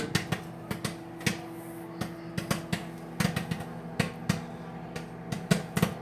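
Microwave popcorn popping inside a running microwave oven: irregular sharp pops, a few a second, over the microwave's steady hum.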